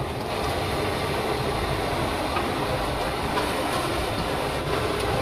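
Steady, dense din of a busy night-market cooking stall, with cooking noise and market bustle blended into one continuous rumble.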